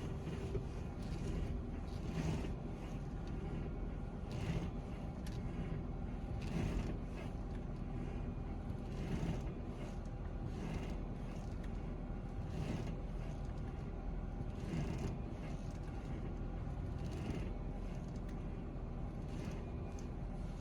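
Steering-wheel noise in a Toyota AZR60 Noah/Voxy: a scraping creak each time the wheel is turned, coming back about every two seconds over a steady low hum.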